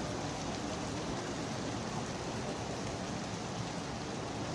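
Heavy rain pouring down, a steady hiss that does not let up.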